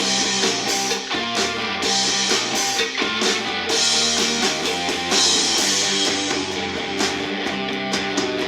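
A rock song with strummed guitar and drums played back through a small portable Bluetooth speaker and picked up by a microphone for a sound test.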